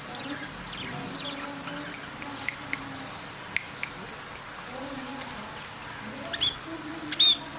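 A parrot giving two short, high chirps near the end, with a few sharp clicks a little before the middle, over a faint steady background murmur.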